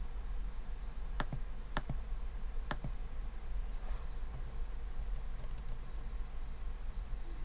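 Steady low hum with three sharp clicks in the first three seconds, then a quick run of faint light ticks: a user clicking and tapping on a Chromebook laptop.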